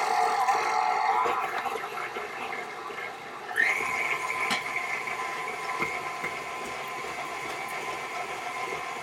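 Electric stand mixer running with cooked chicken chunks in the bowl, shredding the chicken with a steady motor whine. About three and a half seconds in, the whine jumps to a higher pitch and gets louder, then holds steady.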